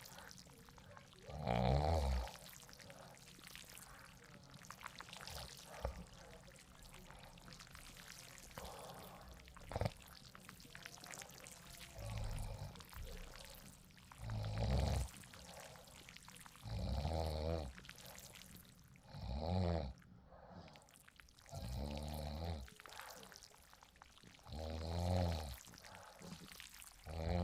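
A person snoring in deep sleep, rough buzzing snores every two to three seconds. There is a pause of about ten seconds near the start, and a steady hiss of rain-like background noise runs underneath.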